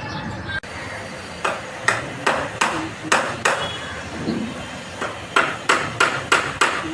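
A series of sharp, irregularly spaced knocks, about a dozen, coming two or three a second and bunching closer together near the end.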